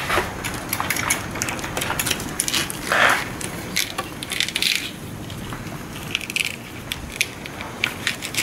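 Corrugated plastic split wire loom being handled as wires are fed into it: scattered small clicks and crinkling rattles, with a louder rustle about three seconds in.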